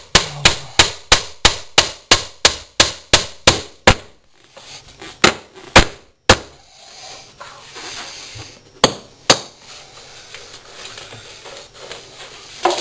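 Claw hammer driving a nail into a wooden skirting board: a quick run of about a dozen blows, roughly three a second, then a few spaced taps.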